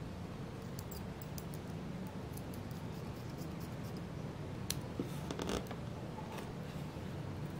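Small precision screwdriver turning tiny screws into a 3D-printed plastic part: faint scratchy clicks and creaks, with a short louder clatter about five seconds in. A steady low hum lies underneath.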